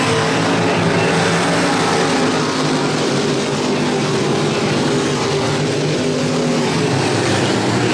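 A pack of dirt-track race cars' engines running hard together through a turn, a loud, steady mix of several engines.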